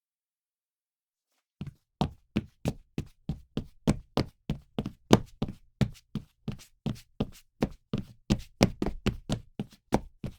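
Footsteps of a person walking briskly, with sharp, evenly spaced footfalls about three a second. They start about a second and a half in, after a short silence.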